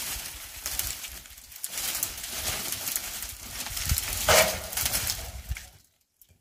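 Dry firewood branches and twigs rustling and crackling as they are gathered up from a brush pile, with a louder crackle about four seconds in; it stops suddenly shortly before the end.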